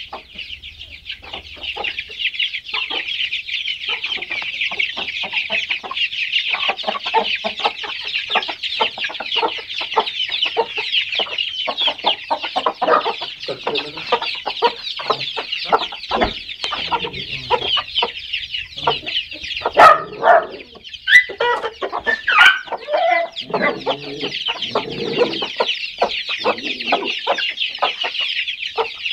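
A flock of Aseel chickens: many chicks peeping continuously in a high chorus, with lower clucking from the older birds underneath. A few louder, lower calls stand out about twenty to twenty-three seconds in.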